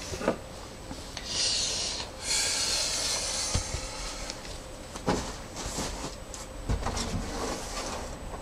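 Rustling and rubbing of clothing and fabric as a person gets up and moves about, two longer rasping stretches in the first few seconds. Then several scattered thumps and knocks of bare footsteps and handling as he walks off.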